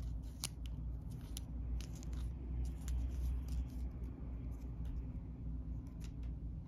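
Thick cardboard game discs clicking against each other in the hand and being set down on the table: a scatter of light, irregular clicks over a low steady hum.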